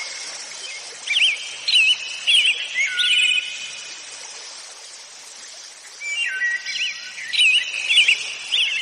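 Birds chirping over a steady outdoor hiss, a nature ambience. The chirps come in quick clusters, then thin out, and pick up again about six seconds in.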